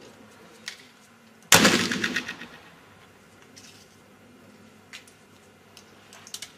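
A black powder pistol fires one loud shot about a second and a half in, its report breaking into a fluttering echo that dies away over about a second. Faint pops are heard before and after it, and another shot goes off right at the end.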